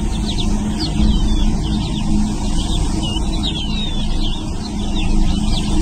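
A chorus of small birds chirping, with many short, quick high calls overlapping, over a steady low rumble and faint hum.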